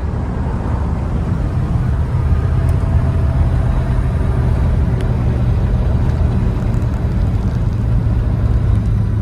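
1946 Hudson Commodore Eight cruising in overdrive, heard from inside the cabin: a steady low drone from its flathead straight-eight engine mixed with road noise.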